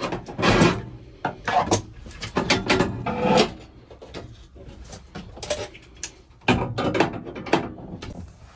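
Irregular knocks, clunks and scrapes of things being handled against wood, busiest in the first few seconds and again about six and a half seconds in, with a quieter stretch between.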